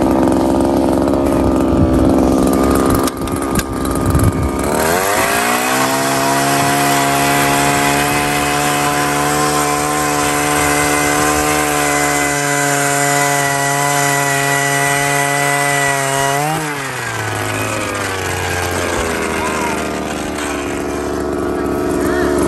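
Gas-powered ice auger engine running at low speed, then revving up about four and a half seconds in as it bores into the lake ice, holding a steady high pitch. About 16 s in it gives a short rev and drops back to a lower speed, as the auger comes out of the finished hole.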